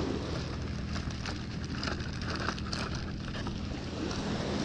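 Steady background hiss with faint scattered clicks and rustles of fishing tackle being handled close to the microphone.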